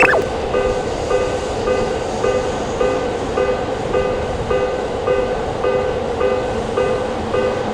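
Japanese railroad-crossing electronic warning bell ringing in a steady alternating two-tone pattern, about two strokes a second, with the rumble of a train passing underneath. A brief falling tone sounds right at the start.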